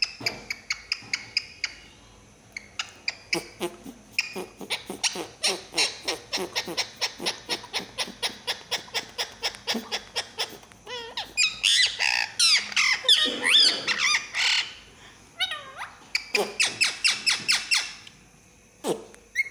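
Rose-ringed (Indian ringneck) parakeet making a rapid run of clicks, about five a second, then a burst of warbling chatter with rising and falling notes. A second run of clicks follows, and a single falling squawk comes near the end.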